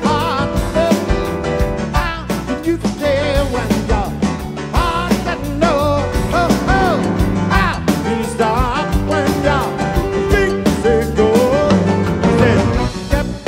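Live rock band playing an upbeat song with piano and a steady drum beat, with melodic lines bending in pitch above it. It is heard as the musicians' in-ear monitor mix, with very little crowd noise.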